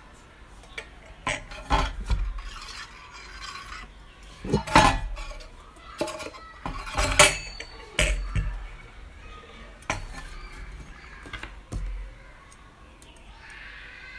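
Stainless steel skewers knocking and clinking against a stainless steel grill base as they are handled and fitted into it. There are several irregular sharp knocks, some ringing briefly, with rubbing and handling noise between them.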